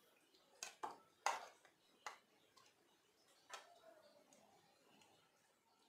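Light taps and clinks of a steel spoon against bowls as raw boneless chicken pieces are scraped into a wide white bowl: about five short knocks in the first four seconds, the last one ringing on briefly.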